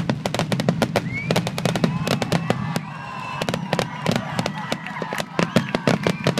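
Fireworks finale: a rapid barrage of aerial shell bursts, several sharp cracks and bangs a second over a steady low rumble.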